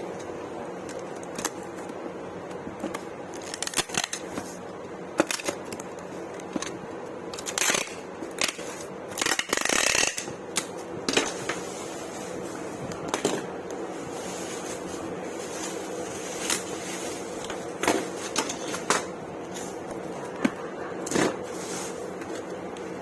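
Irregular clicks, knocks and rustles of an electric kettle and its packaging being handled during packing, over a steady background hum. A longer, louder rustle comes about ten seconds in.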